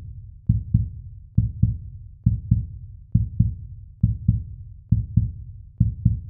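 Heartbeat-style sound effect: pairs of low thumps, about one pair a second, seven pairs in all.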